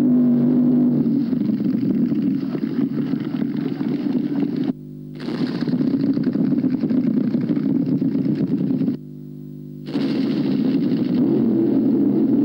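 Loud, rough running of drag racing engines, in three stretches that each cut off abruptly, twice, like splices in the film's sound.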